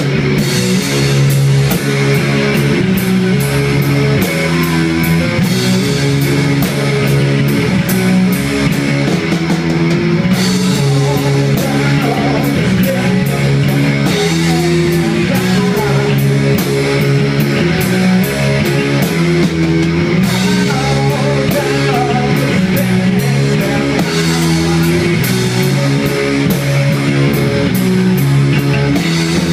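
Live rock band playing loud: distorted electric guitars over a steady drum-kit beat.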